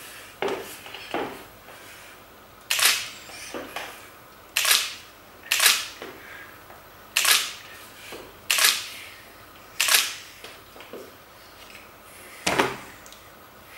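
High-heeled shoes clicking on a hardwood floor: sharp single heel strikes every second or so, some fainter than others, each with a short echo.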